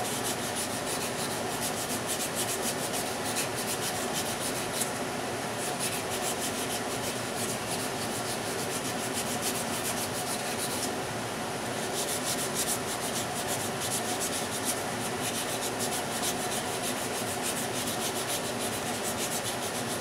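Hand-held bow sander, a sanding strip stretched in a bow-shaped frame, rubbed rapidly back and forth over a small piece of wood to clean up a rounded inside corner. The strokes break off briefly about ten seconds in.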